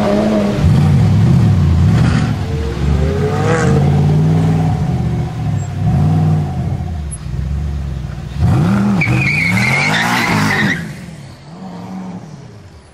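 Gumpert Apollo's twin-turbo V8 revving up and down several times as the car moves off, with a harder burst of revs about two-thirds of the way through. The engine note then fades as the car drives away.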